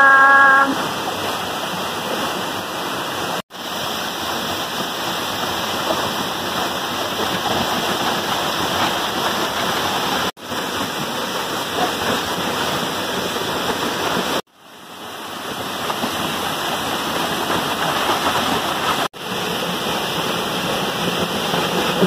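A tall waterfall's steady rush of falling water, heard close by. The sound drops out briefly four times.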